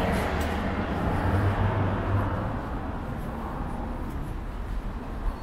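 Street traffic: a passing vehicle whose noise fades over the first two or three seconds, with a low engine hum about one to two seconds in.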